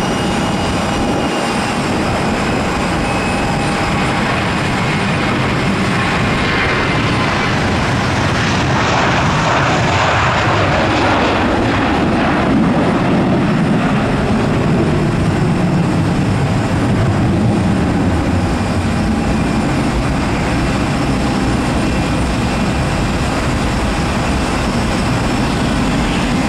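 Airbus A320 jet engines running steadily with a high whine as the airliner slows along the runway after landing. The noise swells for a few seconds about a third of the way in.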